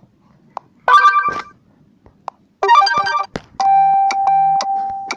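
Three short synthesized phone notification tones, one after another with short gaps: a brief chime about a second in, a quick multi-note jingle near three seconds, then a longer one with a held tone under evenly repeated short notes.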